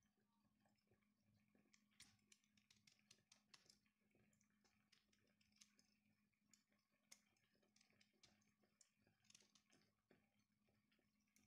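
Very faint, irregular clicks and scrapes of a metal peeler cutting the zest from a lemon's rind.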